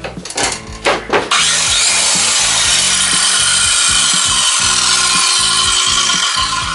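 Imitation DeWalt 185 mm circular saw with a Makita blade cutting through plywood. A few short blasts come in the first second, then a loud, steady high-pitched cutting noise sets in abruptly and holds until it eases off at the very end.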